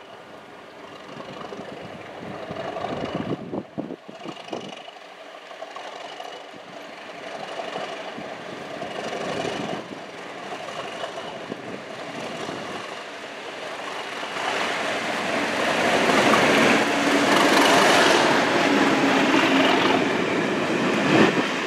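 Class 37 diesel locomotive with an English Electric V12 engine approaching and passing at speed, its engine growing louder as it nears and loudest about three-quarters of the way in as it goes by, then the coaches' wheels rolling past.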